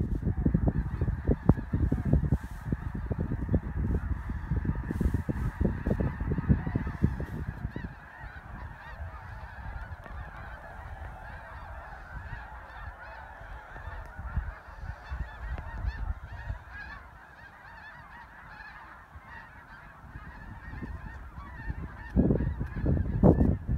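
A large flock of snow geese calling, a dense, unbroken chorus of overlapping honks. Wind rumbles on the microphone, heaviest in the first eight seconds and again near the end.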